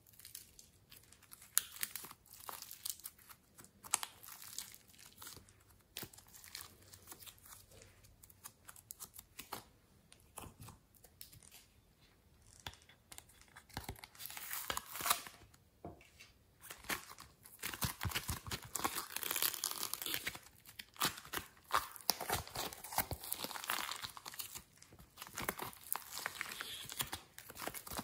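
Hands working sticky slime and soft modelling clay, making runs of small sticky crackles and tearing sounds. The crackling grows denser and louder about halfway through, as soft rainbow clay is pulled apart and squeezed.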